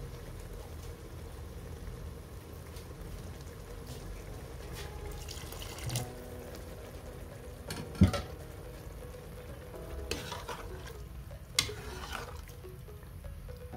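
Aloo keema (minced meat and potatoes) sizzling in a pan as it is stirred, with a few sharp knocks of the spoon against the pan, the loudest about eight seconds in.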